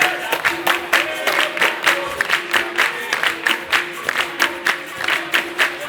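Capoeira roda music: a fast, steady beat of hand claps and percussion with a short repeated instrument note, and some voices singing.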